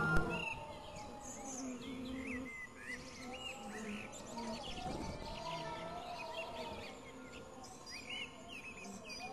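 Wind-driven hurdy-gurdy on the HumBug sculpture droning through its speaker, its pitch wavering up and down as the wind speed changes, with birds chirping over it.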